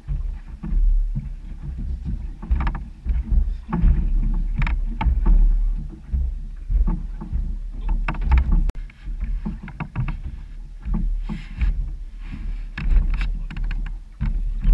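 Choppy water slapping and splashing against the hull of a small fishing boat, in irregular knocks, over a constant uneven rumble of wind buffeting the microphone.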